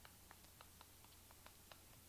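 Near silence: faint short ticks, about three a second, over a low room hum.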